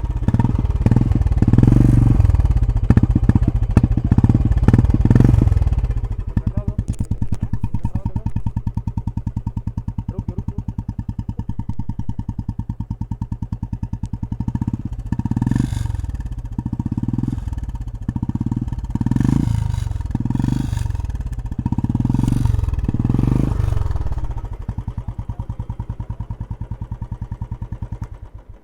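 Royal Enfield Classic 350 BS6's single-cylinder engine running through an aftermarket K-Indori silencer. It is revved for the first few seconds, then settles to an even idle thump. From about halfway it is blipped in a quick series of short revs, then drops back to idle.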